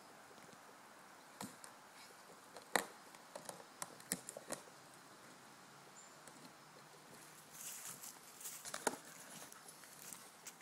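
Scattered light knocks and scrapes of a hollow plastic tub being nosed and pushed over dirt and dry leaves by an Australian cattle dog (blue heeler), with a stretch of leaf rustling from its paws in the second half.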